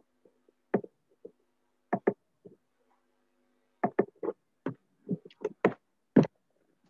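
A run of about fifteen sharp, irregular taps and knocks, some in quick pairs, with a faint steady hum in some of the gaps.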